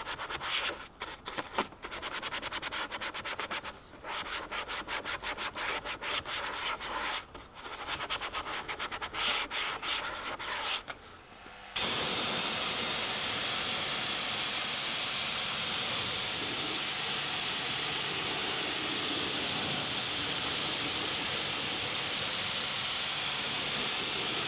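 Stiff-bristled detail brush scrubbing foamy engine cleaner over a plastic engine cover in quick back-and-forth strokes, with short pauses. About halfway through, a pressure washer cuts in with a loud, steady hiss of spray as the foam is rinsed off.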